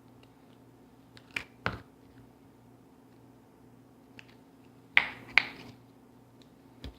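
Sharp pops and snaps from a fluffy slime being handled: two about a second and a half in, two more about five seconds in, and a softer one near the end, over a low steady hum.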